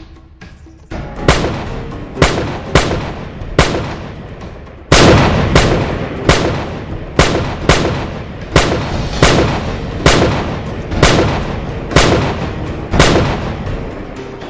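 Rifle gunshot sound effects, about fifteen single shots roughly one a second, starting about a second in, with the loudest about five seconds in, over music.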